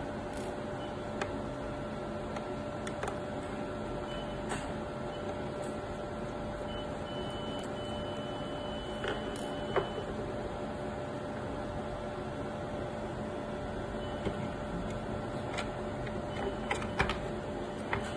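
Small scattered clicks and taps of a DAC's power-supply board and screws being handled during disassembly, over a steady electrical hum.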